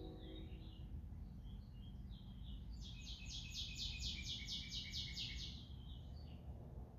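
A songbird singing a fast trill of about a dozen quick high notes, lasting a few seconds, over a faint steady low rumble.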